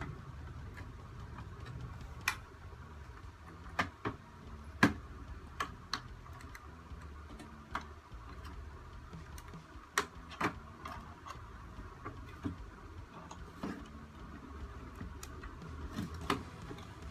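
Irregular sharp clicks and taps of a small screwdriver prying at the plastic housing of a laptop cooler, the loudest about five seconds and ten seconds in, over a low steady hum.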